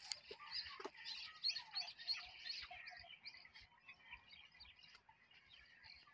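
Small birds chirping: many short, high chirps overlapping, busiest in the first half and thinning toward the end. Two soft knocks in the first second.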